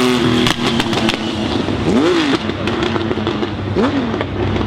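Ferrari Challenge race car engine coming off the throttle: a quick run of sharp pops about half a second in, then two short throttle blips around two and four seconds in, each rising and falling in pitch.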